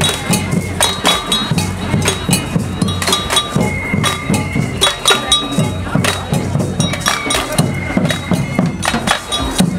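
Street drum band playing a fast, steady rhythm on snare drums and bass drums, with short ringing high notes sounding over the beat now and then.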